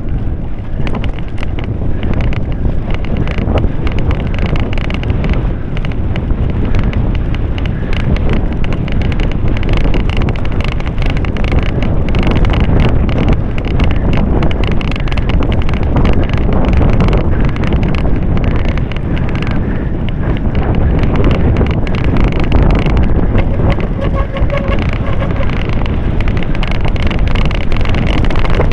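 Wind buffeting the microphone of a camera mounted on a cyclocross bike as it rides over bumpy grass, with a constant clatter and rattle of the bike jolting over the rough ground.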